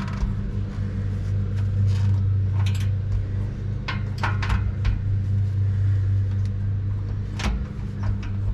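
Wrench and socket clicking and clinking against a steel exhaust clamp as it is tightened, a handful of sharp metal ticks, over a steady low hum.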